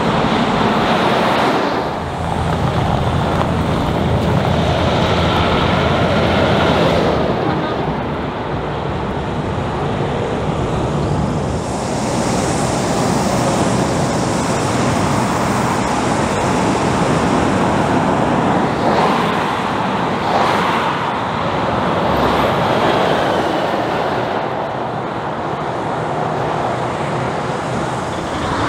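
Heavy diesel trucks with trailers driving past on a highway, one after another. Their engines drone and their tyres hiss, swelling and fading as each goes by.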